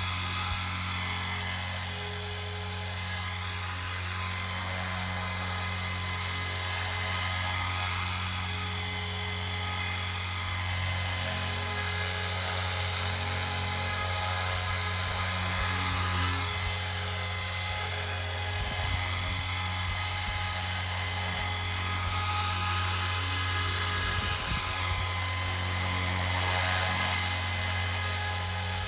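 Radio-controlled model helicopter hovering and flying low: a steady rotor hum with a thin, high-pitched whine over it.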